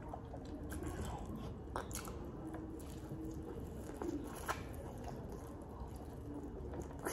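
A person biting into and chewing sauce-covered corn on the cob close to the microphone, with a few short sharp mouth clicks.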